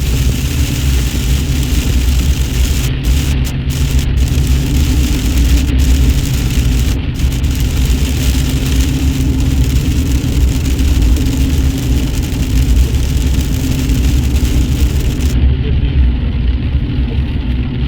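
4x4 pickup truck driving on a highway, heard from inside the cab: a steady engine and road rumble under a loud hiss, which thins out about fifteen seconds in.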